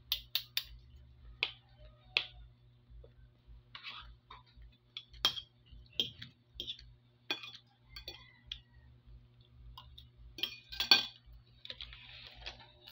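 Metal fork and spoon clinking and scraping against a ceramic plate while eating, in irregular single clinks every second or so, with the loudest cluster about eleven seconds in. A faint steady hum runs underneath.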